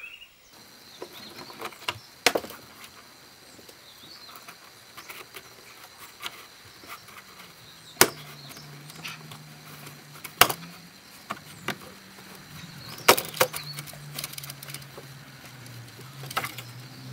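Plastic interior trim panel of a car's rear pillar being pulled off by gloved hands: scattered sharp snaps and clicks as its retaining clips let go, with rustling and light knocks of the plastic in between.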